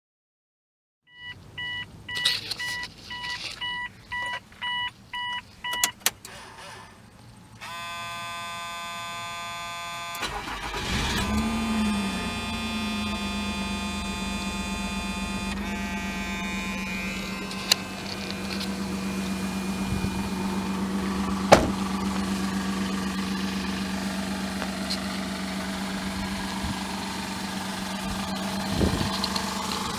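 Electronic beeping, then the 2000 Mazda MPV's 2.5 litre V6 is cranked on the starter for about two seconds, catches about ten seconds in with a brief flare in revs, and settles to a steady idle. The idle carries the exhaust manifold leak and misfire that the owner reports.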